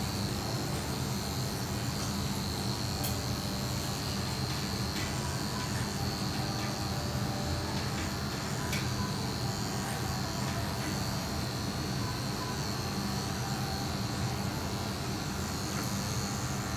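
Corded electric pet clippers running steadily as they shave through a long-haired dog's coat: a constant buzz with a thin high whine over it.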